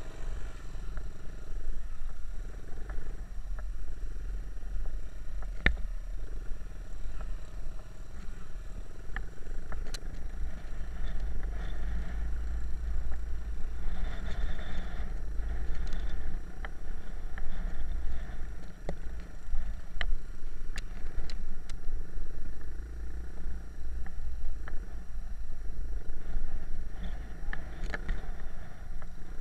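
Small trail motorbikes running along a bumpy dirt track, with wind buffeting the microphone as a heavy low rumble and scattered knocks and rattles from the bikes going over the ruts.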